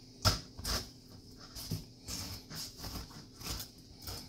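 Kitchen knife cutting down through the center of a whole pineapple on a plastic cutting board: irregular crunching as the blade works through the fibrous flesh and rind, with a sharp knock about a quarter second in.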